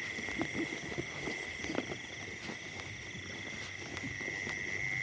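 Insects trilling steadily at one high pitch, with scattered soft crunches of footsteps walking.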